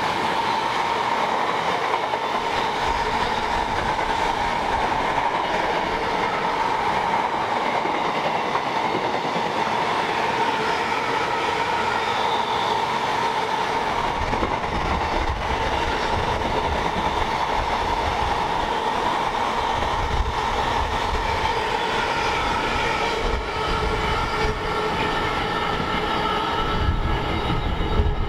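Container wagons of a long intermodal freight train running past at speed: a steady noise of wagon wheels on the rails, with a deeper rumble joining about halfway through.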